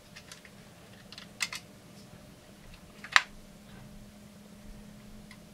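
Scattered small clicks and taps of plastic and metal parts on a Husqvarna 350 chainsaw as its ignition wiring is handled and pulled off, with a pair of clicks about one and a half seconds in and the sharpest click about three seconds in.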